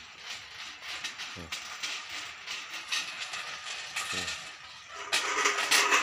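Tin-can bird-scaring rattles on a rope line across a rice field, clattering as the rope is pulled to drive birds off the ripening rice. The clatter gets loudest near the end.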